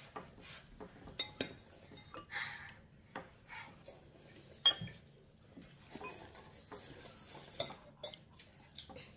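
Chopsticks and spoons clicking and clinking against ceramic bowls as noodles are eaten, with sharper clinks a little over a second in and near five seconds, and soft slurping of noodles between them.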